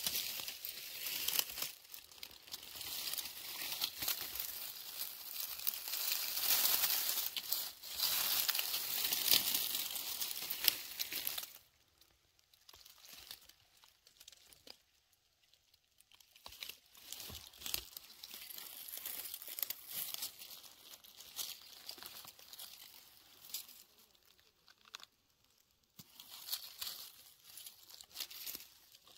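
Dense crackling and rustling, like dry material being crumpled or trodden. It eases off about eleven seconds in to sparser, fainter rustles.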